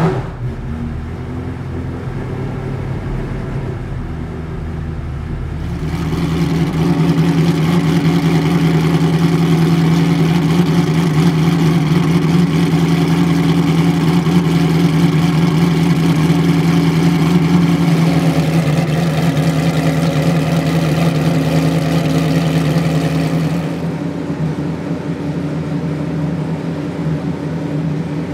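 The Ford GT GT1's Roush Yates 5.3-litre V8 race engine running steadily at idle, with no revving. It grows louder about six seconds in and drops back near the end.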